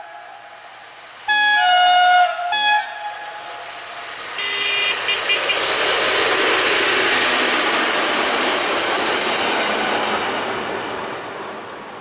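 Newag 6Dg diesel locomotive's horn sounding a blast a little over a second in, stepping down in pitch, with a short second note just after. Then the locomotive and the steam locomotive it hauls pass close by: a rising rush of engine and wheel-on-rail noise that slowly fades away.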